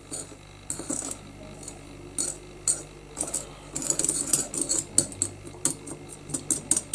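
A spoon stirring a soy sauce marinade in a small ceramic bowl, clicking and scraping against the bowl's side in an irregular run of light clinks that come quicker from about halfway.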